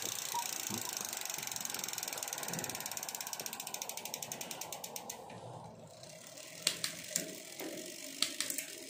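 Bicycle rear hub freewheel ticking as the spinning rear wheel and 12-speed cassette coast, a rapid ticking that slows and fades about six seconds in. A few separate sharp clicks follow near the end.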